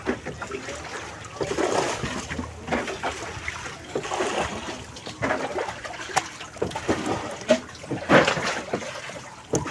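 Water splashing and trickling in irregular bursts, with a few sharp clicks.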